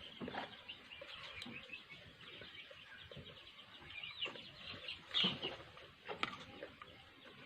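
Small birds chirping steadily in the background, with a few short louder calls or knocks, the loudest about five seconds in.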